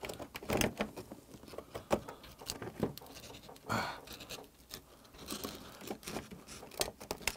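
Knife blade scraping and clicking against the thick, rough shell of a large river oyster as it is worked into the hinge and pried to shuck it raw. Irregular sharp clicks and short scrapes, with a brief longer scrape a little before the middle.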